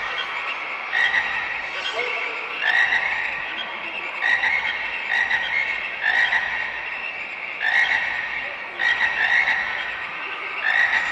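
Recorded frog croaking played through an arena sound system, one croak roughly every second over a steady background of calling.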